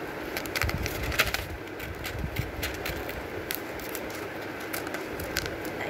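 Scissors snipping through a sheet of A4 paper in short, irregular cuts, about two a second, as a semicircle is cut out.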